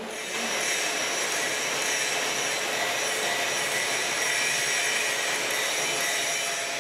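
A machine running steadily with a rushing noise and a faint high-pitched whine, starting abruptly.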